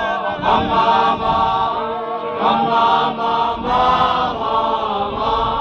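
A large group of men of a ZCC Mkhukhu troupe chanting together in unison, in swelling phrases about a second long.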